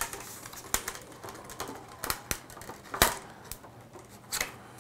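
Paint scraper prying and scraping leftover support material off a 3D-printed plastic model: irregular clicks and small snaps of plastic, the loudest about three seconds in.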